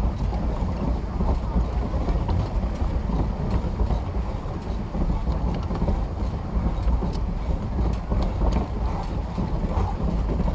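Pedal boat's pedal-driven paddle wheel and crank mechanism running, a steady mechanical clatter and churn with scattered sharp clicks.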